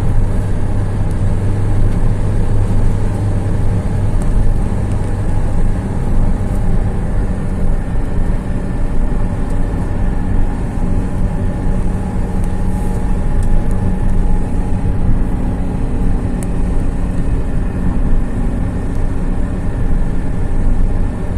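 A vehicle engine running steadily with a low, even hum and road noise.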